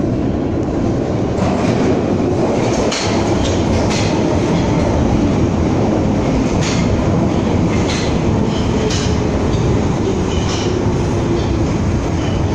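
London Underground Piccadilly line 1973 Stock train pulling into a tube platform: a loud, steady rumble of wheels on rail with irregular clacks over the rail joints, and a whine that falls in pitch in the second half as the train slows.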